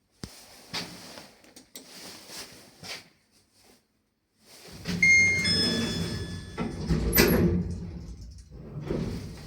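2024 MLM passenger lift creaking badly: a few light clicks, then about five seconds in a loud rumble with high squealing tones, the sharpest squeal about seven seconds in, then fading.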